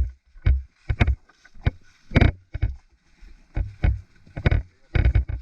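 Footsteps of a person walking on a forest floor, heard close up from a body-worn camera: a run of thuds with a crunch, about two steps a second.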